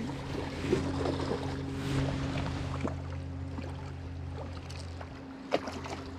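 Steady hum of a boat's outboard motor running on the river, with a few short splashes and knocks from a sockeye salmon being handled and released in shallow water.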